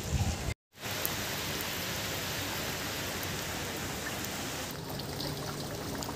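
Steady rain falling on wet paving, an even hiss, broken by a brief dropout just after the start. About five seconds in the rain sound thins out.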